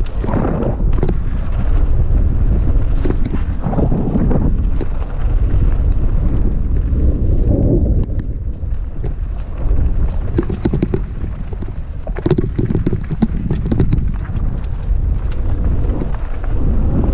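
Wind buffeting the microphone of a fast-moving action camera, a heavy rumble that swells and eases, with scattered rattling clicks and knocks as it travels over a rough dirt trail.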